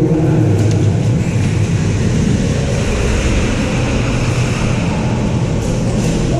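Steady low rumbling noise, with a few faint clicks near the end.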